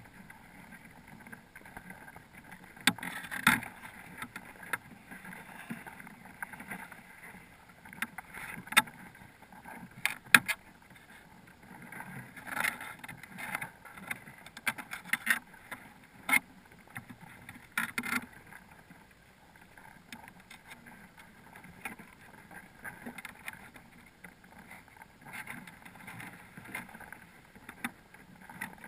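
Muffled underwater noise heard through a sealed camera housing, broken by irregular sharp clicks and knocks as crabs clamber over the crab pot and the camera. The louder knocks cluster in the first two-thirds.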